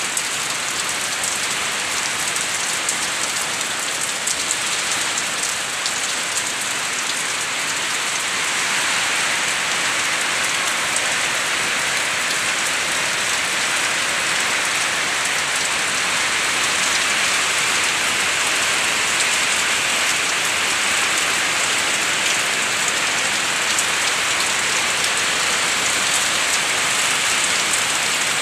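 Heavy typhoon rain pouring steadily on plants, ground and roofs, growing a little louder after a few seconds.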